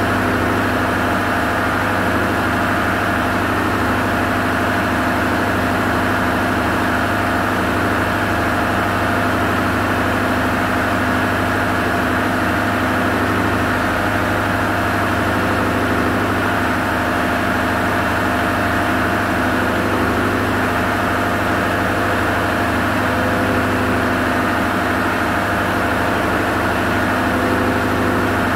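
Marine diesel machinery running steadily: a loud, unbroken drone with a deep hum and several constant tones above it.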